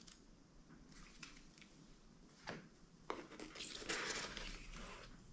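Faint handling of paper leaflets and small cardboard boxes: a light tap about two and a half seconds in, then rustling for about two seconds.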